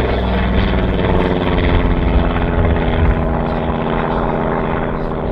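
Yak-3 fighter with a Pratt & Whitney R-2000 twin-row radial engine flying a display pass: a loud, steady radial-engine and propeller drone that holds nearly the same pitch throughout.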